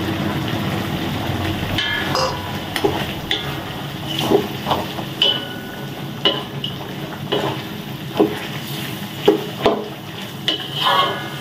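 Wooden spatula stirring carrots and chicken in a simmering sauce in a steel wok: a steady sizzle, then scrapes and knocks of the spatula against the pan about once a second, with a ringing metal clank near the end.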